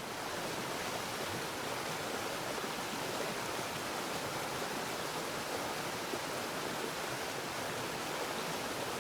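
Steady rushing of flowing water, an even hiss with no breaks or distinct splashes.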